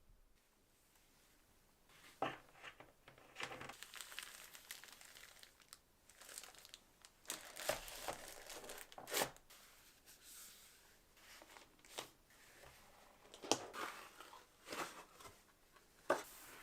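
Irregular crinkling and rustling, like packaging or a bag being handled, with a few sharp clicks in between.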